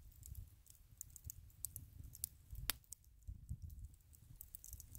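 Wood campfire burned down to glowing coals, crackling faintly with scattered sharp ticks and pops, the loudest a little past halfway.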